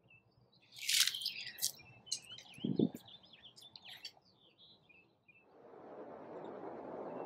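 Birds chirping and twittering for about three seconds, with one short low sound in the middle. From about five and a half seconds in, a steady rushing noise swells up.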